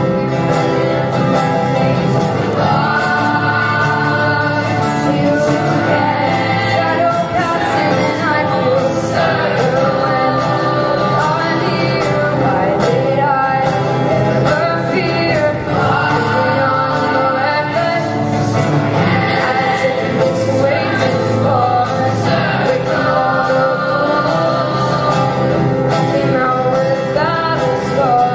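Female soloist singing through a microphone, backed by a mixed choir holding sustained harmonies.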